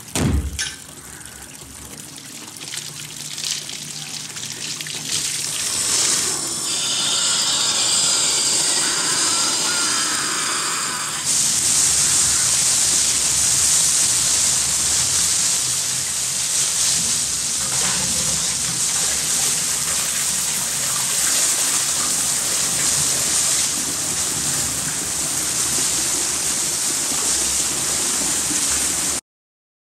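A heavy thump, then water spraying and gushing from burst bathroom pipes. The rushing builds a few seconds in and gets much louder about eleven seconds in, stays steady, then cuts off abruptly near the end.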